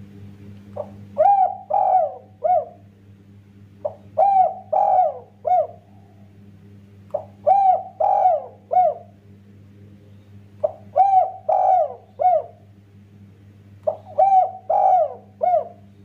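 A spotted dove cooing its song five times, one phrase about every three seconds. Each phrase is a short lead note and then three coos, the last one the shortest. A steady low hum runs underneath.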